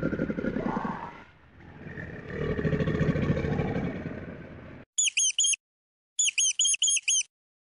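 A crocodile's deep rumbling growl, given twice, the second longer. About five seconds in it gives way to a rat's high squeaks in quick runs of several chirps.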